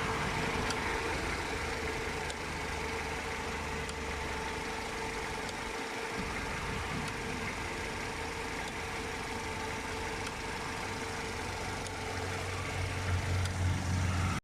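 Mercedes-Benz SLK R170 engine idling steadily under the open bonnet, with faint clicks now and then. The clicks are typical of the ticking that turned out to come from a partially stuck heater duo valve (solenoid coolant valve). A deeper hum swells near the end.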